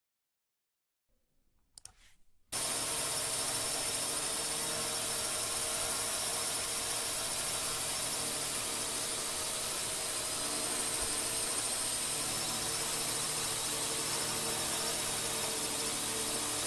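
Steady whirring hiss of a small multirotor drone's motors and propellers, starting about two and a half seconds in after a moment of silence and holding even until it cuts off abruptly.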